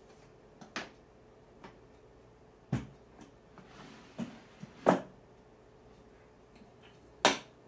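Light wooden knocks and taps as small pieces of wood are handled and set down on a wooden table saw sled, about five separate knocks, the loudest about five seconds in and near the end.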